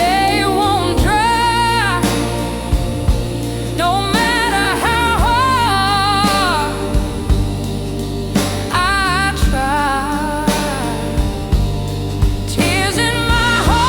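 Slow blues ballad: a sung vocal line in drawn-out, wordless phrases over bass and a steady drum beat.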